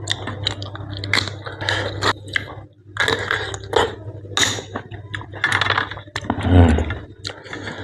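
Close-miked chewing and biting while eating blanched blood cockles, with irregular crunchy bursts and sharp clicks, and a louder low thump about six and a half seconds in.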